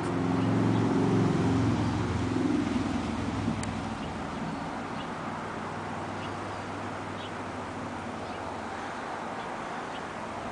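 A low engine hum swells within the first second and fades over the next few seconds to a steady faint drone, like a motor vehicle passing by.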